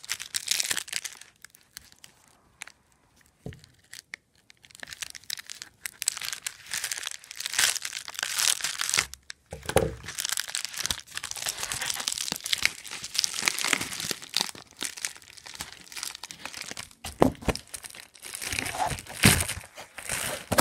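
Package wrapping being crumpled and torn open with some effort: irregular crinkling and ripping, with a quiet stretch a couple of seconds in and a few sharper, louder rips near the end.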